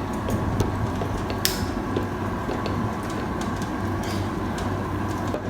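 Restaurant background noise with a steady low hum, and scattered light clicks and taps of tableware at the table, one sharper click about a second and a half in.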